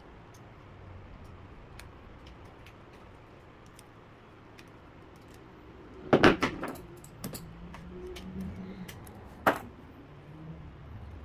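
Metal clicks and clinks from a jumper-cable clamp and electrical wire being handled as the wire is wrapped around the clamp. Faint scattered ticks, then a burst of louder clinks about six seconds in and one sharp click a few seconds later.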